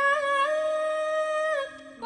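A woman's voice imitating a zebra dove's (perkutut) cooing call, drawing the final 'kung' out as one long high held note that steps up slightly and falls away near the end. The tail is unusually long for the call. A faint low steady hum lies underneath.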